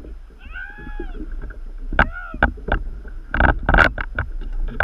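Fishing reel drag whining in short rising-and-falling pulls as a hooked blackfin tuna takes line. Sharp knocks and clatter on the kayak, loudest about three and a half seconds in.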